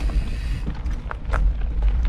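Wind rumbling heavily on the microphone of a mountain bike on the move, with scattered clicks and rattles from the bike riding over a rough dirt trail.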